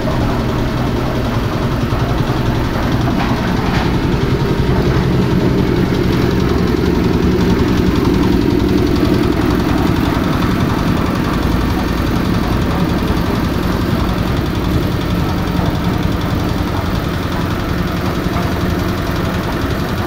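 The concrete mixer's diesel engine runs steadily with an even knock.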